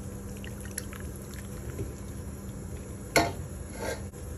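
Menudo broth being ladled into a bowl: soft liquid splashing and patter, with a brief louder sound a little after three seconds in and a smaller one just before four.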